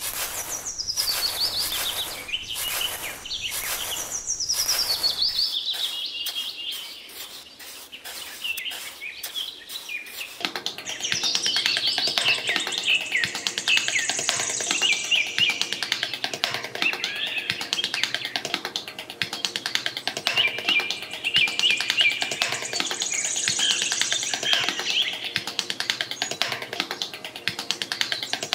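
Birds chirping and singing, a chorus that grows denser about ten seconds in. In the first ten seconds it is joined by short regular strokes about twice a second.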